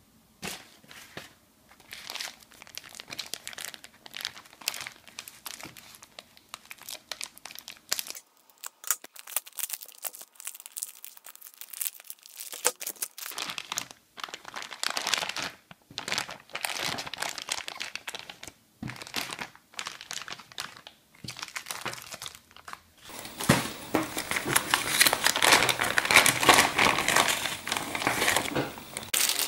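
Clear plastic bag holding silver bullion coins crinkling as it is handled, in irregular bursts with a lull partway through and the loudest, most continuous crinkling near the end.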